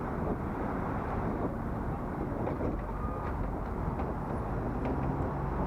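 Steady low rumble of wind and road noise on a helmet-mounted action camera while riding, with a few faint ticks in the middle.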